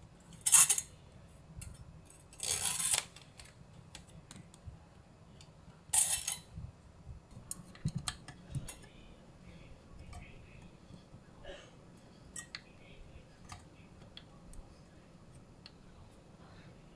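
Handling sounds from putting together computer parts: three short scraping or rustling bursts, about half a second in, around two and a half seconds and around six seconds, then scattered light clicks and ticks.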